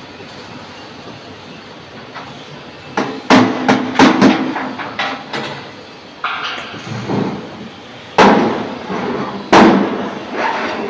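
Metal being struck: a string of irregular, loud clanging blows with a short ring after each, starting about three seconds in.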